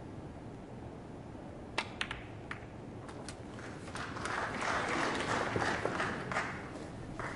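Snooker balls clicking sharply a few times about two seconds in, then a short burst of audience applause that swells and fades over about three seconds.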